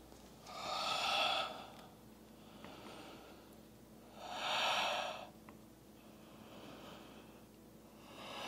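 A woman's deep, audible breathing during a yoga flow: three long, airy breaths a few seconds apart, with fainter breaths between them.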